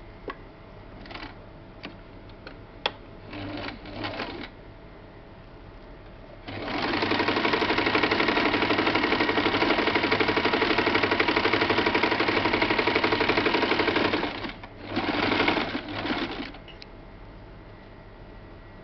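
Small electric sewing machine stitching a fabric strip: a few short bursts of stitching, then a steady run of about eight seconds, then one more short burst.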